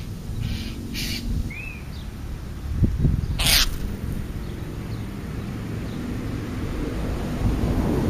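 Crow giving short harsh caws: a couple of soft ones near the start and one loud one about three and a half seconds in, over a steady low rumble.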